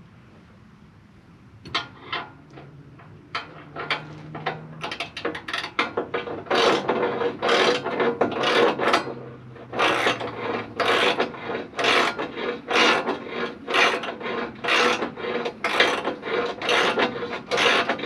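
Rhythmic rasping strokes, like something being rubbed or scraped back and forth by hand. A few scattered strokes come first, then about six seconds in they settle into a loud, steady run of about two a second.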